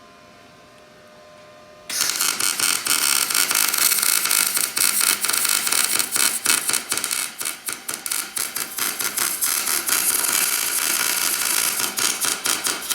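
Wire-feed (MIG) welding arc crackling and sputtering like frying bacon, starting suddenly about two seconds in after a low hum. The welder is laying a bead that joins the spider gears of a Toyota AE86 differential with a plate, locking it.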